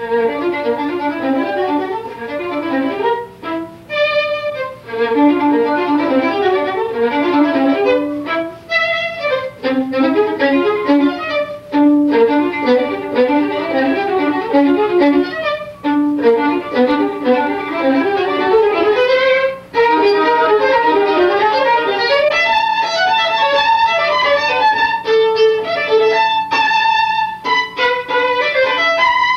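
Solo violin playing: quick runs of short notes broken by a few brief pauses, then longer held high notes over the last third. A faint steady low hum runs underneath.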